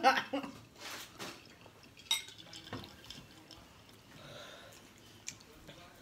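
Drinking soda from a glass jar: a few sips and swallows, with small clinks and knocks of the glass as it is handled and set down on the table. A brief loud voice sound comes at the very start.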